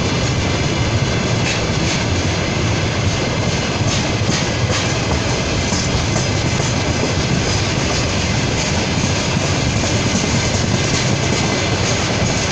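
Tank wagons of a slow freight train rolling past close by: a steady rumble and rattle of steel wheels on the rails, with a few faint knocks.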